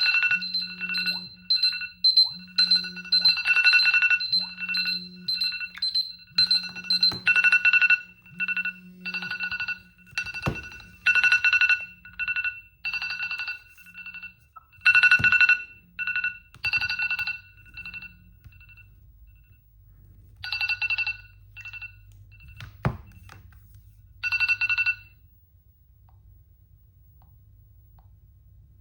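Smartphone alarm tone: a high beeping pattern repeating about once a second, with a low buzz pulsing along with it for the first part. It is broken by a few sharp taps, breaks off after about 18 seconds, comes back in two short bursts and stops about 25 seconds in.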